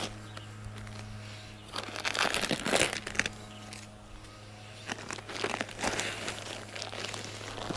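Plastic bag of garden soil crinkling as it is handled and tipped into a raised garden bed, in two bouts, about two seconds in and again around five seconds. A steady low hum runs underneath.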